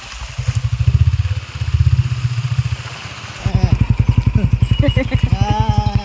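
Motorcycle engine running with a rapid, even pulse while riding slowly over a rough, potholed road; it eases off about two seconds in and picks up again after about three and a half seconds.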